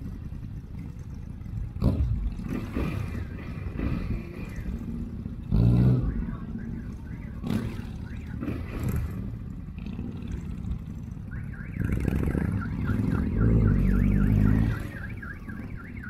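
Motorcycle engines running as a group of bikes rides off slowly over gravel, the engines swelling now and then as riders open the throttle. For the last few seconds a high warbling tone repeats rapidly over the engines.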